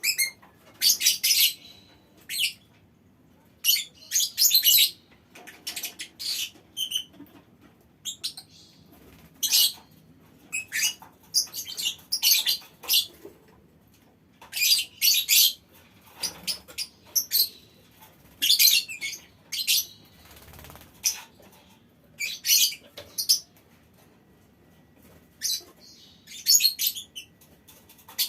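Lovebirds in a colony aviary chattering in quick, high-pitched bursts, each up to about a second long, with short pauses between.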